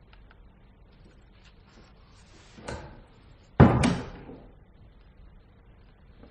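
Radio-play sound effect of a door: a soft knock about two and a half seconds in, then the door shutting with a loud slam a second later that dies away over about a second.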